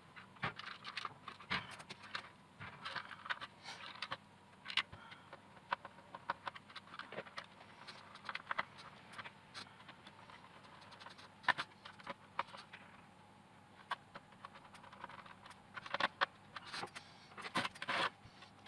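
Irregular sharp clicks, taps and short scrapes of hard parts being handled and set down, with a cluster of louder clicks near the end.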